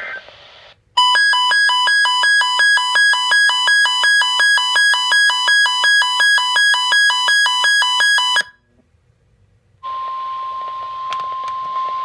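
Weather radio alert alarm: a rapid two-tone warbling beep repeating nearly three times a second for about seven seconds, then cutting off abruptly. After a short silence, the NOAA Weather Radio 1050 Hz warning tone comes on, steady, through radio static with a few crackles.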